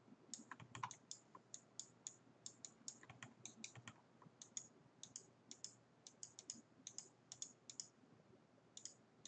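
Faint, irregular computer clicks at the desk, several a second, pausing briefly near the end, as scene objects are painted in place with clicks of the brush.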